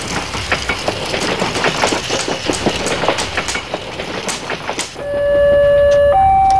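Rapid clickety-clack of train wheels running over the track, then about five seconds in a level-crossing warning alarm starts: a loud electronic two-tone signal stepping between a lower and a higher note.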